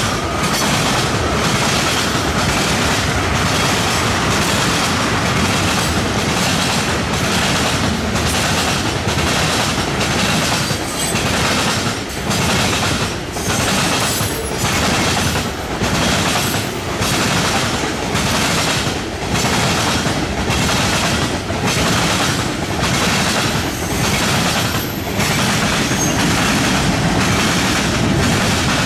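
Freight cars of a fast-moving mixed freight train, mostly tank cars and hoppers, rolling past with steel wheels clacking in a steady rhythm over the rail joints and the diamond crossing.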